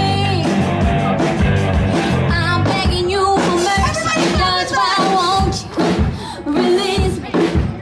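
A band playing rock music: electric guitar and drums with a singer.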